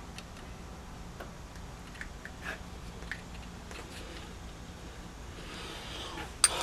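Light scattered clicks and rustles of spark plug wires being handled and fitted onto the plugs in an engine bay, with one louder sharp click near the end.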